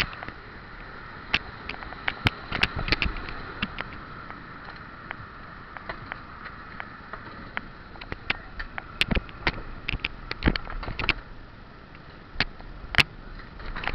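Handling noise on a small camera's microphone: irregular sharp clicks and knocks over a faint steady high hum.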